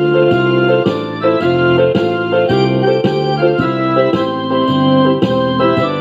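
Instrumental background music: held chords that change about twice a second in a steady rhythm.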